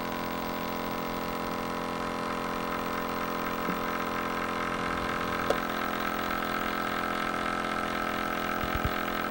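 Gold-film mercury vapor analyzer's air pump running with a steady hum as it draws a 10-second sample of air from beside an amalgam-filled tooth; it cuts off suddenly at the end of the sampling run.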